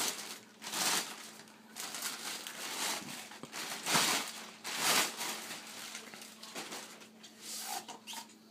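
Clear plastic wrapping rustling and crinkling in several short bursts as it is pulled off a rifle.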